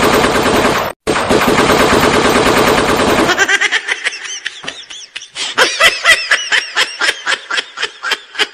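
Recorded AK-47 automatic gunfire, fake, as a prank: long rapid bursts, cut by a brief break about a second in, stopping about three and a half seconds in. Laughter follows in short repeated bursts.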